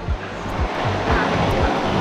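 Background music with a low pulsing beat, over a steady rushing noise and a few faint clicks.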